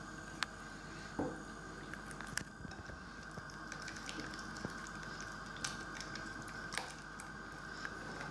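Silicone spatula stirring beaten eggs with sautéed leek and potato in a glass bowl: soft wet squishing, with a few light clicks of the spatula against the glass.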